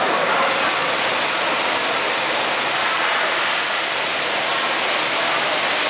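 Go-kart engines running steadily as a dense, even drone in an enclosed concrete garage.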